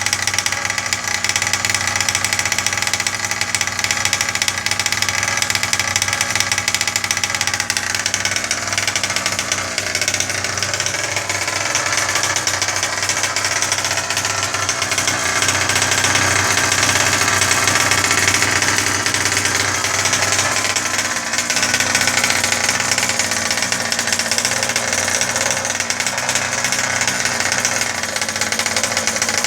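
FG Marder 1/5-scale RC car's small two-stroke petrol engine running through a twin exhaust, its speed rising and falling a little in the middle.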